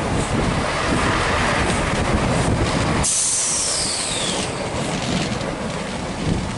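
Great Western Railway diesel multiple unit running through at speed: a loud rumble and rush of wheels on rail that drops away suddenly about three seconds in as the last coach passes, leaving a hiss with a high whine falling in pitch.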